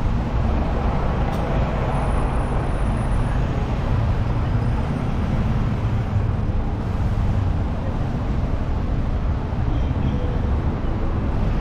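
Road traffic: a steady low engine rumble from slow-moving cars and a motor scooter passing close by.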